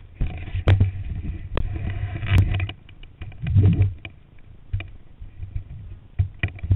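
Handling noise from a helmet-mounted camera: irregular bumps, rubbing and low rumbles, with several sharp clicks and knocks as the helmet is moved about in someone's hands.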